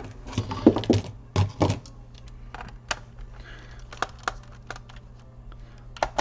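Clicks and knocks of plastic and metal laptop parts being handled as the hard drive is taken out of an Acer Aspire 5738G: a cluster of louder knocks in the first two seconds, then sparser single clicks, over a faint steady hum.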